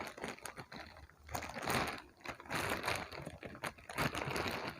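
Plastic packaging rustling and crinkling in irregular bursts, with scattered small clicks, as a pair of slippers is unwrapped and handled.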